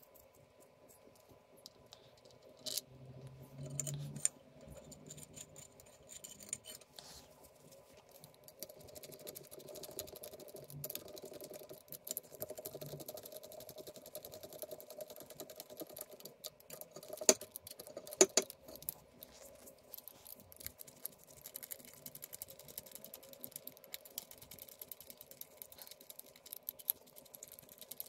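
Hand tools and small metal parts being handled during outboard water-pump work: a run of light, irregular clicks and taps, with two sharper knocks a little past halfway, over a faint steady hum.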